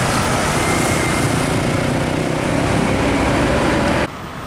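Hino 500 box truck's diesel engine running loud as it rounds the bend close by. The sound cuts off suddenly about four seconds in, leaving quieter road noise.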